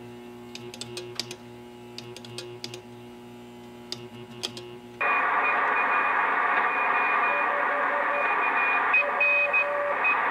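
A steady low hum with a few light clicks. About halfway through, a shortwave receiver comes on with 40-metre band noise and Morse code (CW) signals keyed on and off at two pitches, one high and one low: stations crowding the band (QRM).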